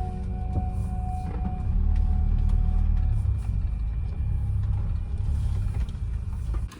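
Low, steady rumble of a Nissan Caravan diesel van driving along a road, with background music fading out in the first few seconds. The sound cuts off abruptly near the end.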